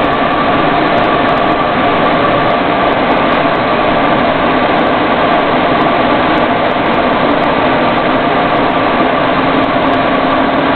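Loud, steady cabin noise inside a military convoy vehicle on the move: engine drone and road noise, with a few steady tones running through it.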